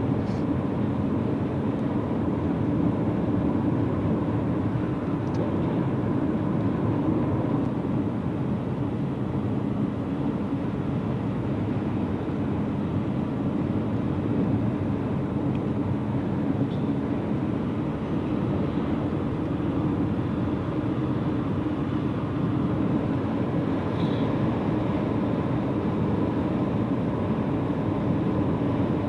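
Steady road and engine noise heard inside a car cruising at highway speed: an even low rumble with no change in pace.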